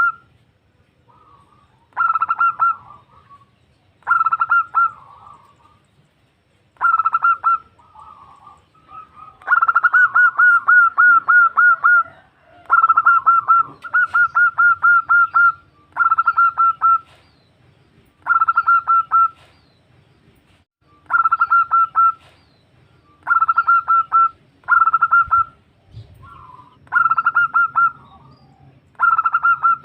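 Female zebra dove (perkutut) calling to a male: bursts of rapid, staccato coo notes repeated about every two seconds, with two longer runs of about three seconds near the middle.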